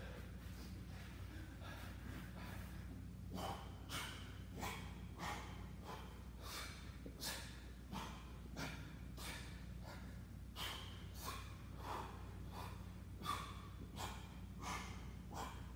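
A man breathing hard under exertion, with short forceful exhales about every two-thirds of a second that begin a few seconds in, as he works through seated Russian twists.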